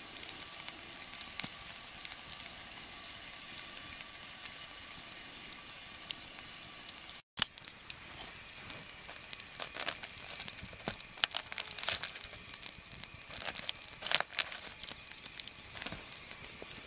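Campfire embers under a foil packet of Arctic char, giving a steady hiss with a few soft crackles. After a sudden break about seven seconds in, aluminium foil crinkles and a fork clicks and scrapes against it in quick, irregular ticks.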